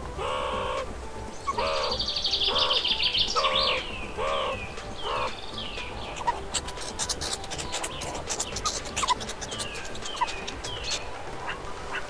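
Several birds calling together. One repeats a short falling whistle over and over, another gives a run of short lower calls in the first half, with a buzzing trill about two seconds in and rapid clicking chatter in the middle.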